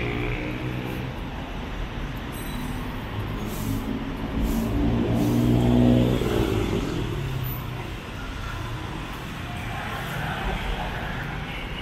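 Road traffic passing close by on a city street. One vehicle's engine rises in pitch and grows loudest about six seconds in, then drops in pitch as it passes and fades.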